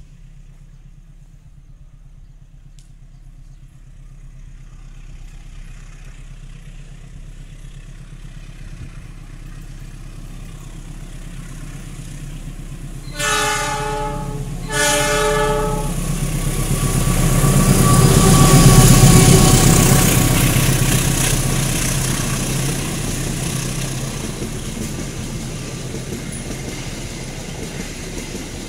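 A CC206 diesel-electric locomotive approaches with its engine rumble growing steadily louder. It sounds its horn twice, about a second each, then passes close by, loudest as it goes past. The coaches follow with the steady noise of wheels rolling on the rails.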